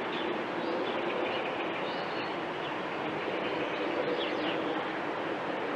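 Steady outdoor background noise, an even hiss-like wash, with faint bird chirps scattered through it.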